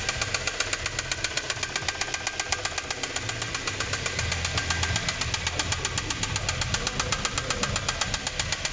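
Kia Sorento 1.6 gasoline engine running with a rapid, even metallic knock. It is rod knock: the connecting-rod bearing shells are worn, heat-darkened and riding over one another, and the oil is full of metal filings.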